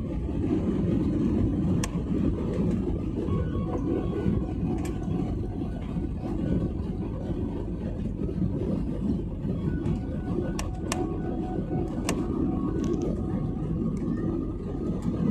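Airliner cabin noise heard from inside: a steady low rumble of the aircraft on landing rollout or taxi, with a few scattered sharp clicks and rattles.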